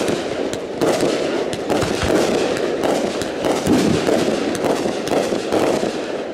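Consumer aerial fireworks going off in quick succession: sharp reports about two a second over continuous crackling from the bursting stars.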